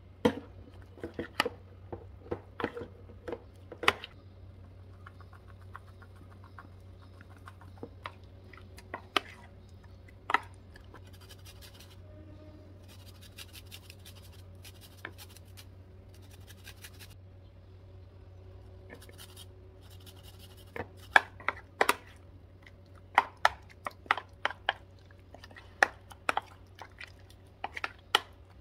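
Sharp clicks and taps of a metal spoon and a spice shaker against a plastic food tub, then a few seconds of rasping as a garlic clove is rubbed on a small hand grater. Near the end comes a quick run of clicks as the spoon stirs a wet prawn marinade in the tub.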